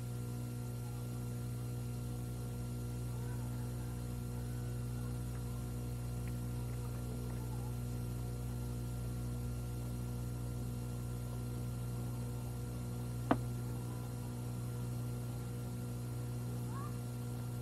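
Steady electrical mains hum with several overtones, and a single sharp click about thirteen seconds in.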